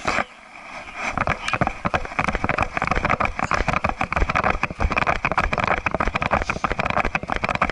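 Sony HDR-AS30V action camera rattling and knocking in its case on a chest mount: a dense run of clicks and knocks over a rushing noise, starting about a second in after a single knock. It is the rattle the case passes to the microphone with every movement.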